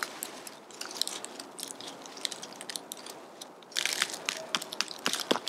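Dry fallen leaves and ground litter crunching and crackling under hands and knees as a tent corner is staked out, in scattered crackles with a denser burst of crunching about four seconds in.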